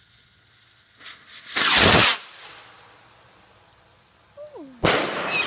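Consumer fireworks going off: a short rising hiss about a second in leads into a loud half-second blast, and a second sharp bang comes near the end.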